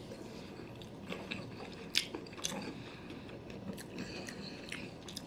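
Close-miked chewing of a mouthful of California roll sushi: soft, wet mouth sounds with scattered small clicks, the sharpest about two seconds in.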